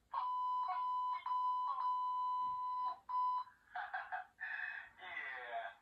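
A steady high-pitched censor-style beep tone, about three seconds long with a short break near the end, played from a tablet's speaker over a bleeped-out line of cartoon film dialogue. Then a few seconds of the film's characters talking.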